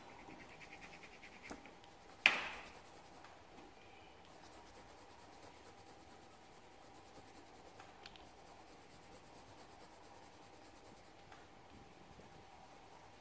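Quick scratching strokes on paper for about a second and a half, then one sharp knock on the tabletop about two seconds in, the loudest sound. After that only a faint steady hum and the odd small tick.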